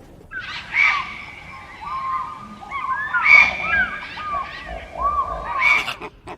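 Several birds calling at once, many short overlapping calls that glide up and down in pitch, with a few louder bursts among them.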